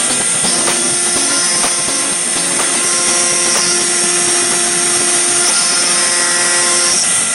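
A CNC router spindle milling a brass plate: a steady high-pitched spindle whine over the constant hiss of the cutter chipping metal.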